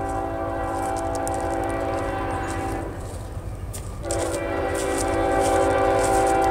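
Air horn of an approaching CSX ES44AH locomotive sounding two long blasts, a chord of several steady tones: the first cuts off about three seconds in, and a second, louder blast starts about a second later.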